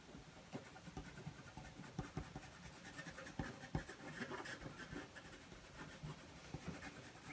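White coloured pencil scratching on black card in short, quick strokes as fur texture is built up. It is faint and irregular.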